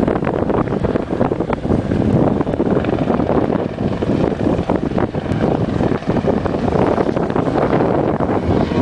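Loud wind buffeting the microphone over a continuous low rumble.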